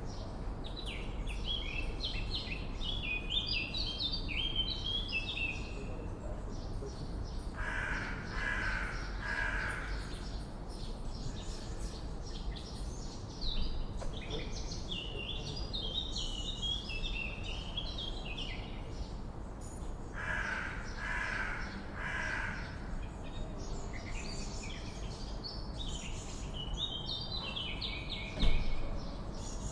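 Swallows twittering in quick high chirping bursts, broken twice by a crow cawing three times in a row, over a steady low background hiss. A short knock comes near the end.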